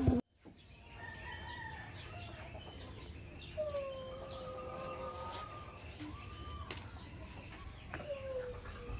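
Roosters crowing in the background, several drawn-out crows in turn, each a long held call that slides down at its start.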